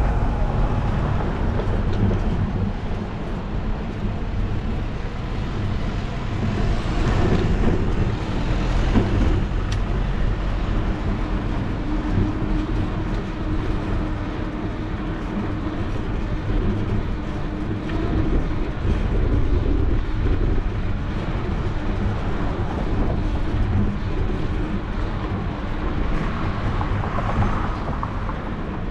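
Steady rumble of wind on the microphone and rolling noise from a bicycle ride, with street traffic going by.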